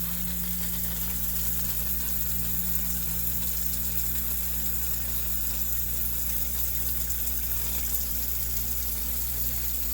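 Zoeller sump pump running steadily, its electric motor humming under the rush of water being pumped out of the pit. It is running under the control of a newly fitted LevelGuard electronic switch in place of the original float switch.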